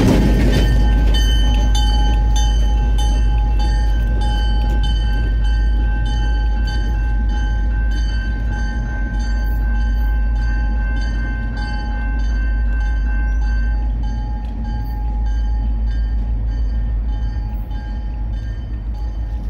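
CPKC train rolling through a level crossing, with a steady low rumble and rail clatter, while the crossing bell rings at an even beat. The bell fades about two-thirds of the way through.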